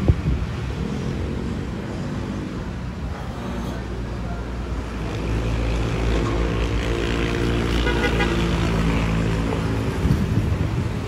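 Road traffic: a car passing close by with a low engine hum that builds through the middle and eases off near the end.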